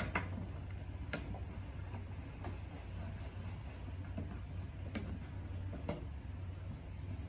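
Scattered light metallic clicks and scrapes of an Allen key turning and snugging up the rack's shelf bolts, over a steady low hum.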